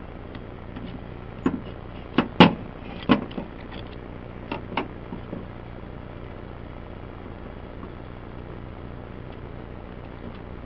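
A handful of sharp clicks and knocks, most of them bunched about two to three seconds in, as diesel injector parts and tools are handled during an O-ring replacement, over a steady low hum.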